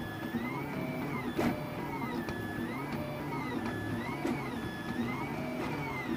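HICTOP Prusa i3 3D printer's stepper motors whining as the print head moves, the pitch gliding up and down in smooth arcs about once a second as the nozzle traces the round chip's curves. There is one sharp click about a second and a half in.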